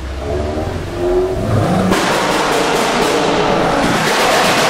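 Modified car's engine revving up, its pitch rising over the first two seconds as it pulls away, then suddenly turning to a loud, dense full-throttle exhaust note with rapid crackle.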